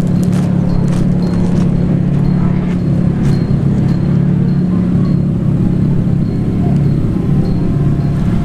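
Several drift cars idling together in a staging line, a steady low exhaust rumble.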